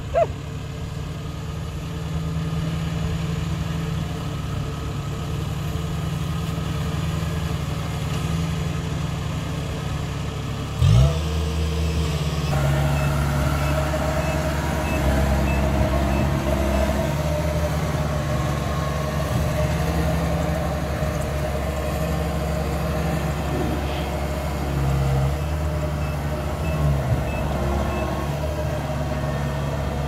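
Rice combine harvester's engine running steadily under load. A sudden cut about eleven seconds in brings it closer and a little louder.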